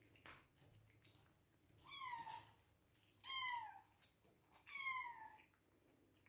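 Hungry Bengal kitten meowing three times, each meow short and sliding down in pitch.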